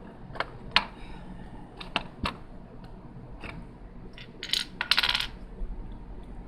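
Plastic Lego pieces being handled: several sharp separate clicks, then a short, louder rattle of loose pieces about five seconds in.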